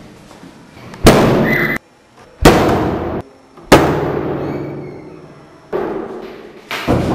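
Five loud, sudden bangs about a second apart, each dying away in a long echo; the first two cut off abruptly.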